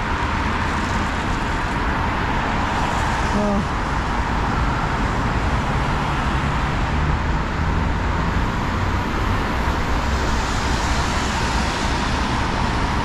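Steady road traffic from cars and buses driving by on a multi-lane city road, tyre and engine noise blending together. It swells a little near the end as a vehicle passes close.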